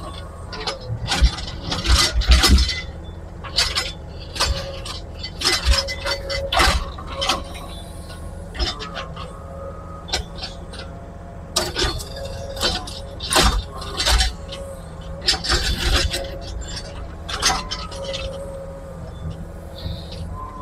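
Excavator engine running steadily while the bucket clanks and scrapes against broken concrete and brick rubble, in many short, irregular knocks and clinks.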